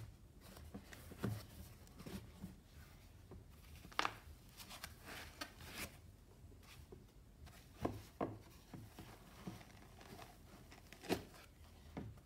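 Handling noise from unpacking porcelain cups out of a box with a foam insert: scattered light knocks and soft rustles. The sharpest knocks come about four seconds in and about eleven seconds in.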